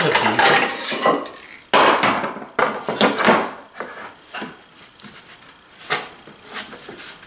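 Wooden boards, oak and MDF, knocking and sliding on a perforated workbench top as they are laid side by side and pressed together. The loudest knock comes suddenly about two seconds in, with scraping after it, and a few lighter taps follow.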